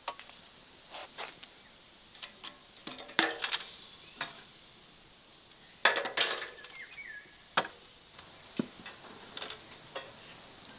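Utensils clinking, tapping and scraping against cookware at irregular intervals, a scattering of sharp knocks with the loudest about three seconds in and again about six seconds in.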